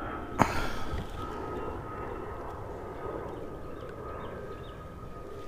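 Airplane droning overhead, steady, with one sharp knock about half a second in.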